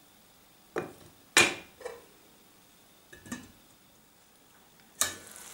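A few sharp knocks of kitchen utensils against a stainless-steel frying pan, the loudest about a second and a half in. Near the end, the steady sizzle of tomato sauce frying in the pan.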